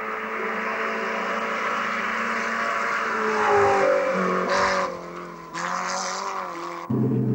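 A small racing car's engine revving hard, its pitch climbing, dropping back and climbing again as it accelerates through a bend, with tyre and road noise under it. Near the end the sound cuts abruptly to a steadier, lower engine drone.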